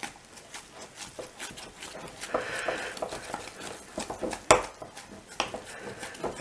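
A knife stirring sticky sourdough dough in a glass measuring jug, clinking and scraping against the glass in irregular strokes, with the loudest knock about four and a half seconds in. The dough is being worked until its gluten develops.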